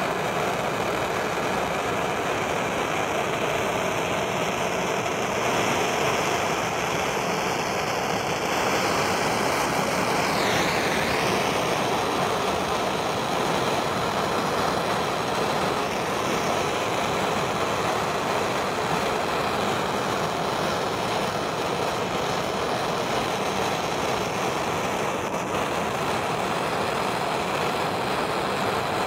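Propane torch on a camp propane cylinder, its flame hissing steadily as it chars the surface of oak.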